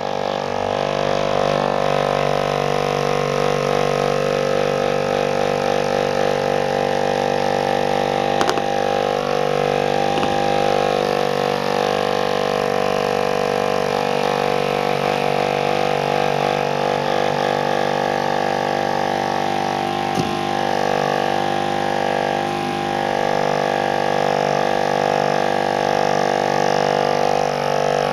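Electric palm massager's motor running steadily against a cat's fur, a loud, even buzzing hum. Two brief knocks, about a third of the way in and again about two-thirds in.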